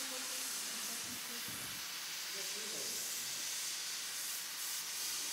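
Handheld steam-cleaner wands hissing steadily as they jet steam onto the stone tesserae of a floor mosaic.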